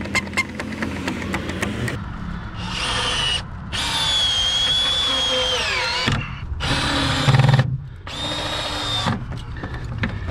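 Power drill driving screws into the wooden 2x framing of a fence, in about four short runs of motor whine. The longest run slows and falls in pitch as the screw seats, about six seconds in.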